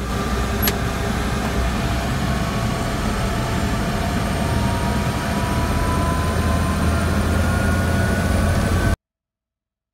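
Helicopter cabin noise in flight: a steady engine and rotor rumble with a faint tone slowly rising in pitch. It cuts off abruptly about nine seconds in.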